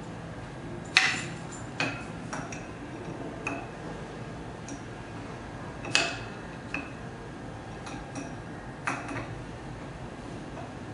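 Scattered metallic clicks and knocks as the parts of a heat press's round plate attachment are handled and fitted onto the press head. The loudest knocks come about a second in and about six seconds in.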